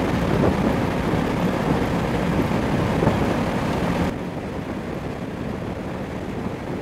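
Steady aircraft noise in flight: a dense rumble with hiss above it. About four seconds in, the hiss cuts away abruptly, leaving a slightly quieter, lower rumble.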